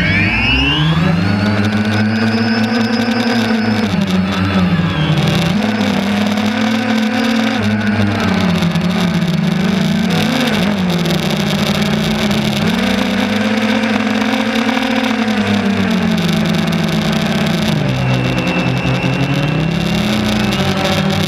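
DJI Phantom 2 quadcopter's electric motors and propellers spooling up for take-off, heard from the GoPro mounted on the craft: the whir climbs steeply in pitch in the first second. It then runs on in flight, rising and falling in pitch every few seconds as the throttle changes.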